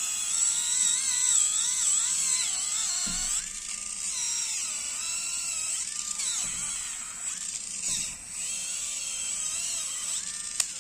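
AGARO electric callus remover whining as its rotating abrasive roller files dead skin off a heel, its pitch wavering up and down as it is pressed against the skin. It switches off with a click near the end.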